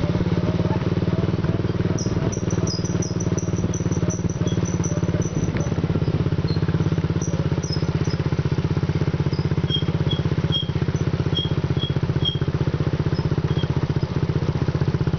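ATV engine running steadily at an even speed while being driven, with no change in pitch.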